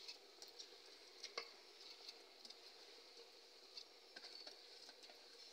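Faint patter and scattered light ticks of wet washed rice being scraped by hand out of a steel bowl into a cooking pot, fingers rubbing against the bowl.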